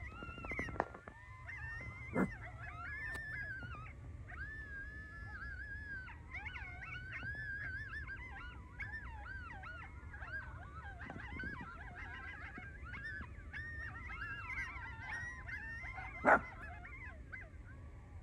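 A pack of coyotes yipping and howling together: many wavering, gliding high calls overlapping one another. A few sharp knocks cut through, the loudest near the end.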